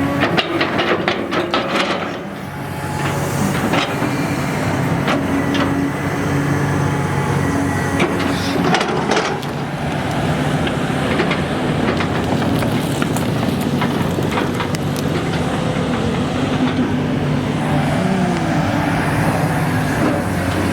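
Excavator's diesel engine running steadily under digging work, with bursts of metallic knocks and scraping from the bucket in the first couple of seconds and again around the middle.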